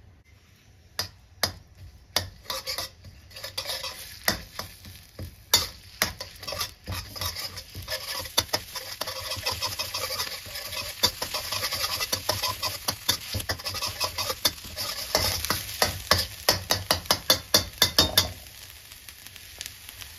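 Pounded curry paste sizzling as it fries in oil in a wok over medium heat, with a metal spatula repeatedly scraping and clacking against the wok as it is stirred. The stirring stops near the end, leaving a quieter sizzle.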